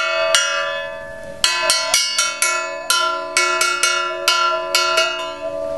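A copper World War II shell casing, slit with a hacksaw, struck again and again with a pencil in an irregular rhythm, each strike ringing out in bell-like metallic tones. Under the strikes runs a steady held note, sung into the small hole in the casing.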